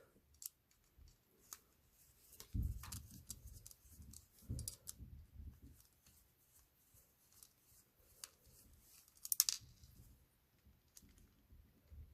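Faint small clicks and light knocks of a 1/64-scale diecast toy truck's metal parts being handled and fitted back together on a work surface, with a brief louder scrape near the end.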